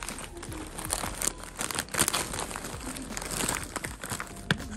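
Thin black plastic bag and snack wrappers crinkling and rustling in quick, irregular bursts as a hand rummages through them.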